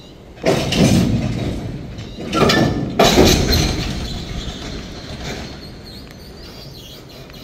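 Freight train cars giving three sudden loud metallic jolts, about half a second, two and a half and three seconds in, each trailing off over a second or so.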